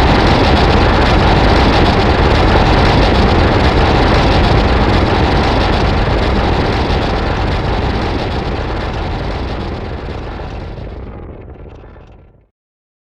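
Godzilla sound effect: a loud, sustained rushing noise with a deep rumble and no roar in it, holding steady and then fading away over the last four seconds or so.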